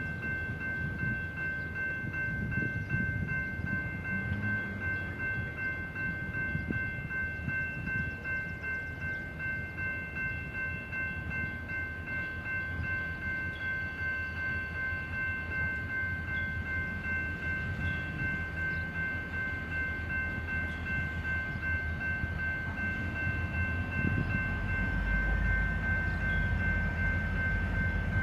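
Railroad grade-crossing bell ringing steadily as a train approaches; the train's low rumble grows louder near the end.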